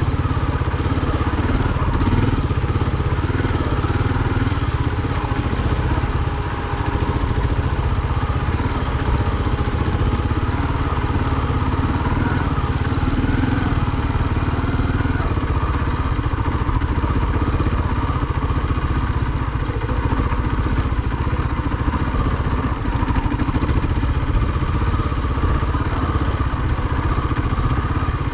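Trail motorcycle engine running steadily as the bike is ridden along a rough grass track, its pitch rising and falling slightly with the throttle, over a strong low rumble.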